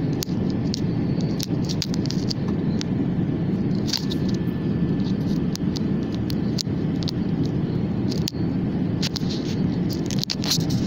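Steady low rumble of an Airbus A380-800 passenger cabin, with scattered scrapes and clicks of the camera rubbing against cloth.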